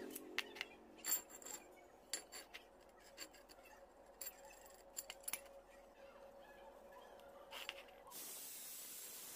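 Faint, scattered clicks and light taps of a short piece of metal pipe being handled and turned in the fingers. About eight seconds in, this gives way abruptly to a steady faint hiss.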